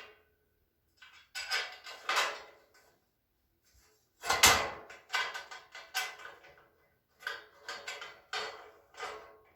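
Metal shelving parts clanking and clinking together as they are handled and fitted: a string of separate knocks with short ringing, the loudest about four and a half seconds in, with quicker lighter taps near the end.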